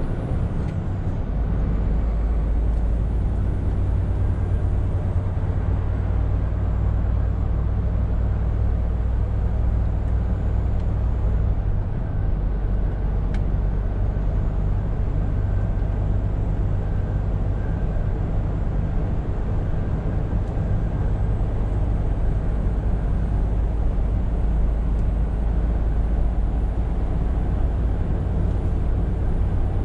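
Scania R520 truck driving: its diesel engine runs with a steady low drone over road and tyre noise, and the engine note shifts slightly about twelve seconds in.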